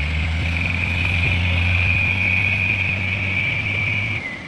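Excavator's diesel engine running steadily under load with a high, steady whine over it; both ease off shortly before the end.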